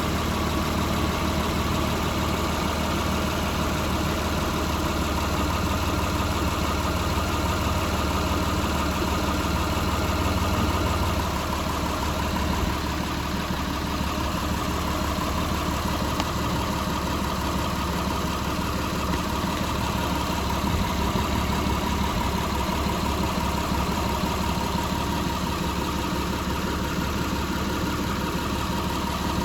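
Mitsubishi 380's 3.8-litre V6 engine idling steadily, the car having a failing water pump that leaks coolant.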